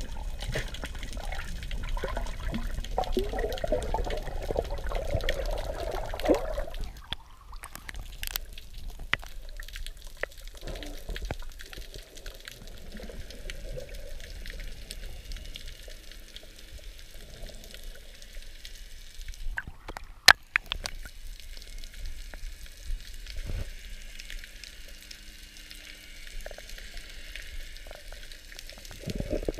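Water rushing and bubbling, heard underwater through the camera during a freedive, louder for about the first seven seconds. Then a quieter underwater hiss with scattered clicks and one sharp tap about twenty seconds in.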